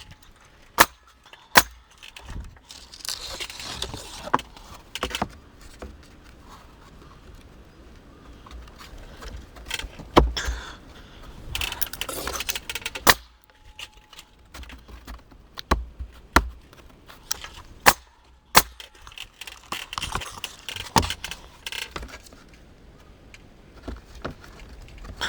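Vevor pneumatic coil siding nailer driving nails into wooden clapboard siding: several sharp shots at uneven intervals, with metallic rattling and handling noise between them.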